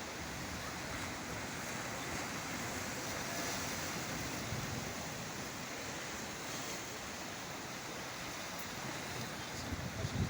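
Sea waves breaking and washing in as a steady rushing surf, with a slight swell in the middle.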